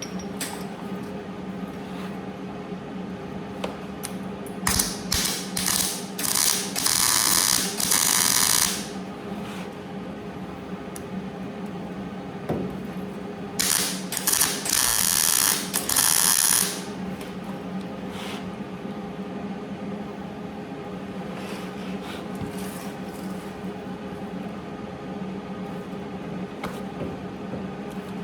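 Two spells of crackling metalworking on a car body patch panel, each a few seconds long, made up of short bursts, over a steady low hum.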